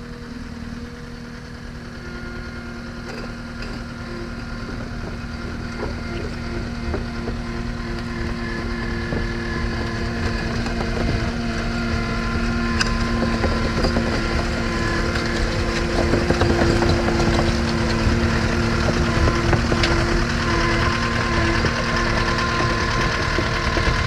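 Caterpillar 259D compact track loader's diesel engine running steadily as the machine drives on its new steel tracks, growing louder as it comes closer, with many short clanks and clicks from the tracks.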